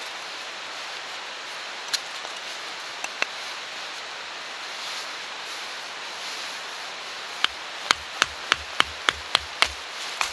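Batoning firewood: a wooden baton knocking on the spine of a fixed-blade knife driven into a small split of wood, about eight sharp knocks at roughly three a second in the last few seconds, after a few light clicks earlier on. A steady background hiss lies under it all.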